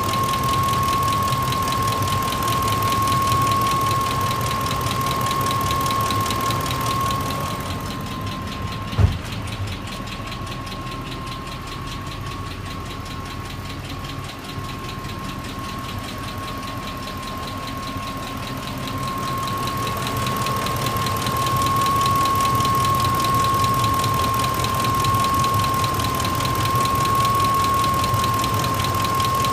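2004 Ford F-150 Triton V8 engine idling with a fast, even ticking/knocking that came on suddenly in an engine that had run well; its cause is unknown. A steady high whine runs under it, and there is one sharp click about nine seconds in.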